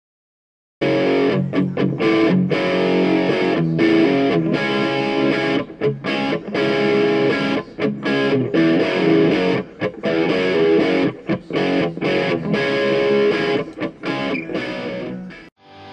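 Background music led by distorted electric guitar, starting abruptly about a second in and stopping just before the end.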